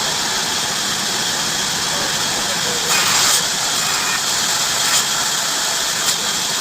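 Heavy-duty bandsaw running and cutting through wood: a steady loud hiss, with a brief louder surge about three seconds in and two short knocks near the end.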